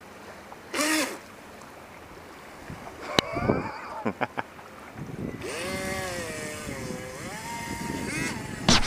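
Electric motor of a SkyTech H101 RC speedboat whining as it is throttled: a short burst about a second in, then a long whine from about halfway that dips and then climbs higher near the end, over wind and water noise. A sharp click a little after three seconds.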